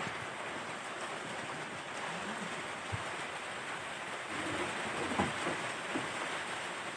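Steady, even hiss like rain, with a single short knock about three seconds in.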